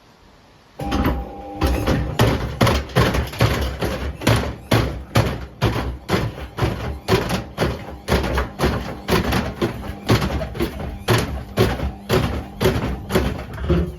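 Beko washing machine running at reduced speed with a concrete weight in the drum, knocking in a steady rhythm of about two thumps a second as the unbalanced drum turns. The knocking starts about a second in.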